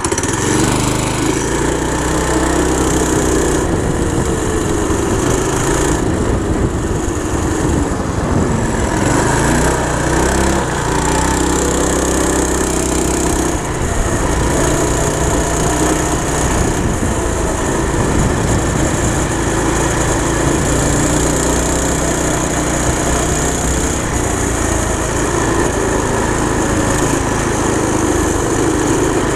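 Go-kart's small single-cylinder petrol engine running under load, driving through a torque converter, its pitch rising and falling every few seconds as the throttle is worked.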